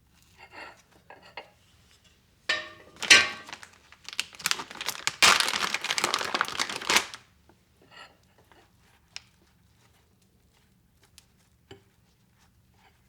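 Rustling and crinkling of something being handled, in bursts that are loudest from about two and a half to seven seconds in, followed by a few light taps.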